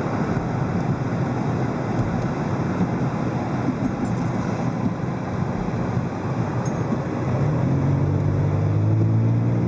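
A car driving: steady road and wind noise, with an engine hum that grows clearer and a little louder about seven seconds in.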